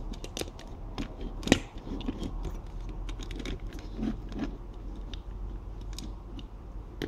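Small plastic clicks and taps of Pinypon toy figures being handled, their snap-on heads and hair pieces pulled off and pushed back on, with one sharper click about one and a half seconds in.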